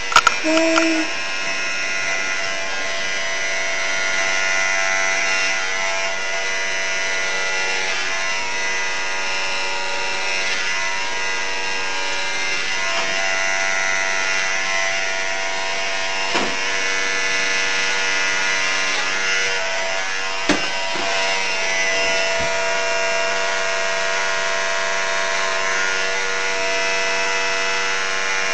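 Electric hair clippers running with a steady buzz as they shave hair off a head, with two brief knocks in the second half.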